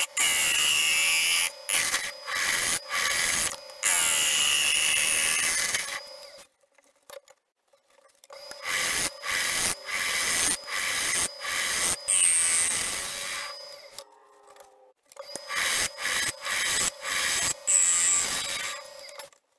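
Bowl gouge cutting the inside of a pine and plywood bowl spinning on a wood lathe: rough, hissing cuts over a steady hum, in three long stretches broken by many short breaks, with near-silent pauses between them.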